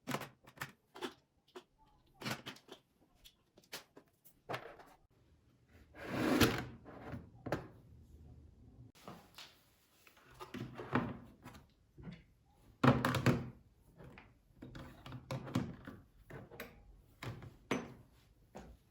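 Household handling sounds from a drawer being sorted: a string of small knocks and clicks, with the loudest thumps about six and thirteen seconds in, like a drawer sliding and bumping shut.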